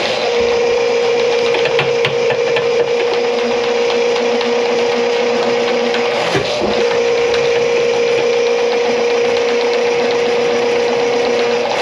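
Motor-driven drain-cleaning machine running steadily on a plugged kitchen drain stack, with a constant hum over a rough, noisy rattle; the hum dips briefly about six seconds in, then picks up again.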